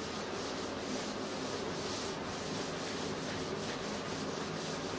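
A duster rubbing chalk off a chalkboard in quick, repeated back-and-forth strokes, a steady scrubbing noise.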